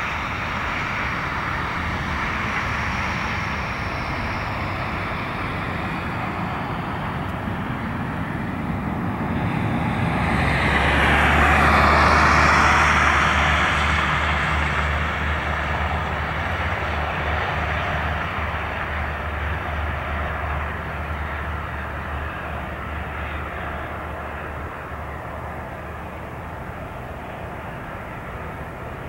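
Cessna 172's piston engine and propeller during a touch-and-go: the engine is opened up to takeoff power after the touchdown, grows louder and sweeps down in pitch as the plane passes about twelve seconds in, then drones on steadily and slowly fades as it climbs away.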